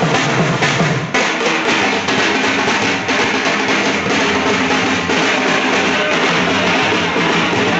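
Loud music with a steady drum beat, and one sharp hit about a second in.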